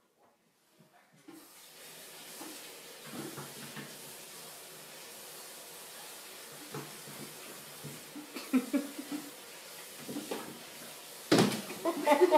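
Steady room hiss with small scattered scuffs, then near the end a loud thump as a Siamese cat drops off a wooden table.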